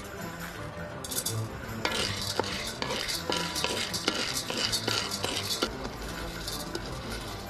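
Steamed pine nuts in their hard shells tipped into a pan and stirred. The shells rattle and click against the pan, starting about a second in and stopping a little before the end.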